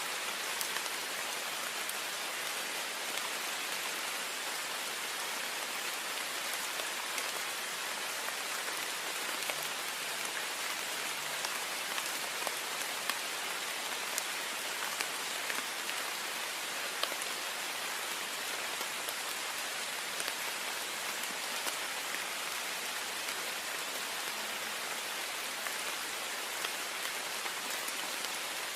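Heavy rain falling steadily on a window: a dense even hiss with scattered individual drop ticks.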